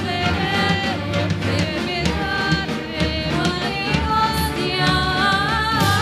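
A string orchestra playing live, with a woman singing the melody into a microphone.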